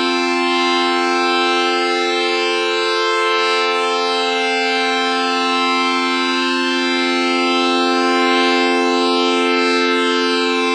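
Tokyoup V465 siren sound effect: a loud siren holding one steady pitch throughout, rich in overtones, neither rising nor falling.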